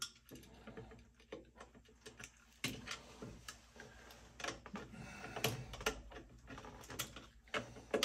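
Light, irregular metal clicks and scrapes of a screwdriver working on an oil burner's air adjustment.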